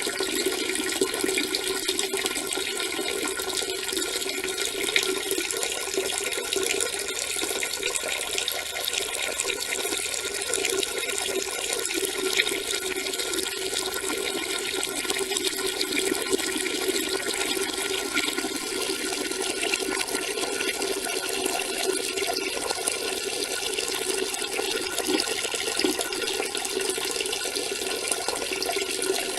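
A person urinating: a steady, unbroken stream splashing into water.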